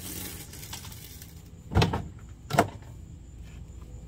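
Two sharp knocks, a little under a second apart, against a steady low background.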